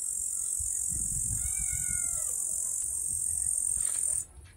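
Insect buzzing on a high, steady note that cuts off suddenly near the end. About a second in, a cat on a pole gives one meow that rises slightly and then falls.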